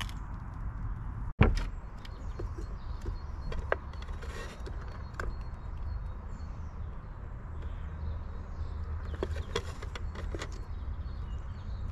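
Squirrels busy at a squirrel feeder: scattered clicks, knocks and creaks over a steady low outdoor rumble, with one sharp knock about a second and a half in.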